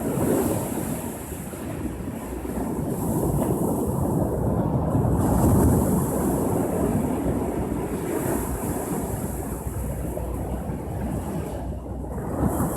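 Ocean waves breaking and washing on the shore, a steady surging rush that swells loudest about halfway through, with wind buffeting the microphone.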